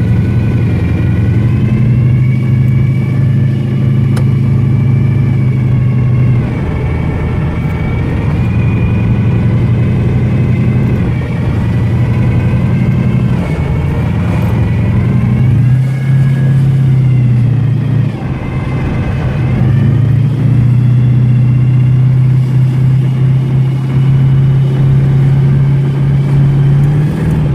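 A 383 V8 with dual four-barrel carburettors on a tunnel ram, heard from inside a 1933 Ford Victoria while it drives slowly. The engine note drops and rises several times as the car shifts and the throttle changes.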